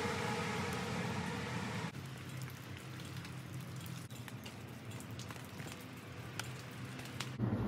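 Rain falling with water dripping. Single drops tick sharply at irregular moments from about two seconds in.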